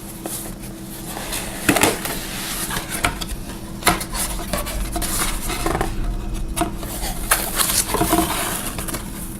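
Flashlight box being opened and unpacked by hand: rustling of packaging with scattered light clicks and knocks as the contents are handled.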